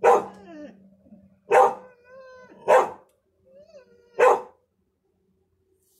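A dog barking four times, about a second and a half apart, with softer whining between the barks.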